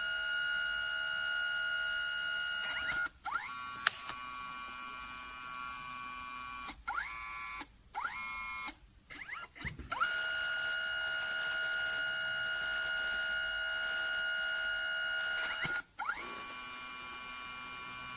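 The print mechanism of a Kodak Mini Shot 3 Retro instant camera-printer: a small motor whines steadily, stops and starts again several times, with clicks and short rising whirs each time it restarts.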